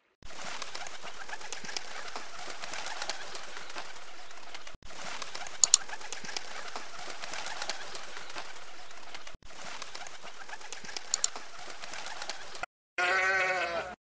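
Feral rock pigeon cooing softly over a steady background hiss, with a couple of brief sharp clicks. About a second before the end a sheep starts bleating.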